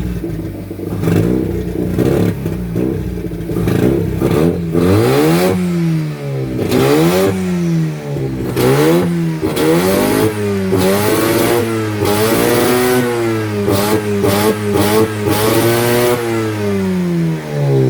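Rotary engine running on the owner's own ECU tune, first steady, then blipped up and down about eight times from about five seconds in, each rev rising and falling back. The revs come with sharp pops and crackles, which the owner calls "a lot of pop".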